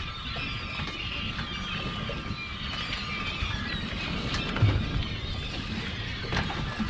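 A flock of seabirds calling over each other in many short, wavering cries, over low wind and boat rumble. A single low thump comes about two-thirds of the way through.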